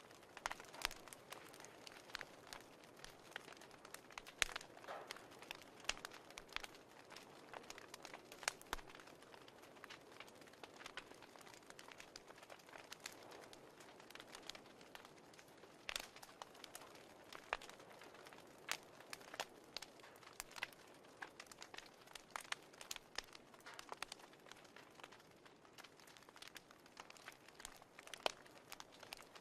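Fireplace crackling: irregular sharp pops and snaps over a soft, steady hiss.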